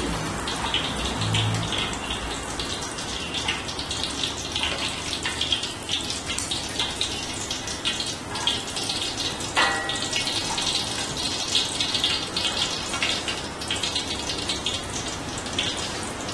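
Fish frying in hot oil in a wok: a steady sizzle with dense crackling. A brief metallic ring about ten seconds in.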